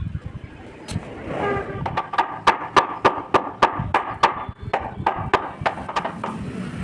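Hammer striking wood in a run of quick, even taps, about three a second.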